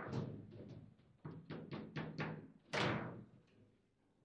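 Foosball table in play: rapid knocks and clacks of the ball striking the plastic figures and the table walls, and of the rods sliding and banging. A cluster of hits comes in the middle, and the loudest single knock comes near three seconds in.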